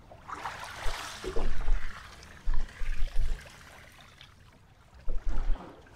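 Sea water splashing and trickling close by, strongest in the first two seconds, with several short dull bumps.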